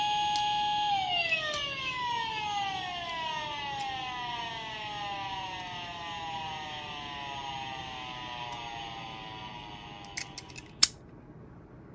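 Police car siren holding a steady pitch, then winding down in a long, slow fall in pitch and fading over about ten seconds. A few sharp clicks near the end.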